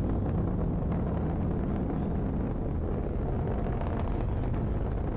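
Falcon 9 first stage's nine Merlin engines firing during ascent: a steady deep rumble with faint crackling.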